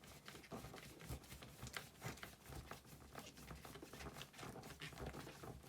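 Faint, irregular clicks and scratches of a small screw being driven by hand with a screwdriver into the plastic housing of a GHD Gold hair straightener.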